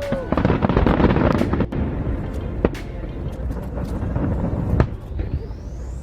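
Fireworks going off: a dense crackle in the first couple of seconds, then separate sharp bangs about two, three and five seconds in.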